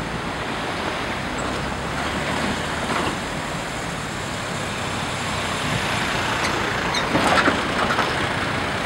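Steady road traffic noise from passing vehicles, with a short cluster of sharp knocks about seven seconds in.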